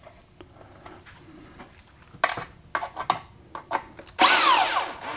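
Cordless drill/driver driving an M3 screw through a foam gasket into a threaded insert in a 3D-printed PLA mold piece: about four seconds in, the motor starts with a loud whine that rises and then falls in pitch. Before it come a few knocks and clicks from handling the plastic parts and the drill.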